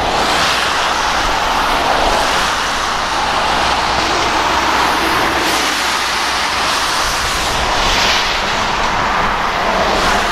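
Steady rushing of a flood-swollen river running high and fast.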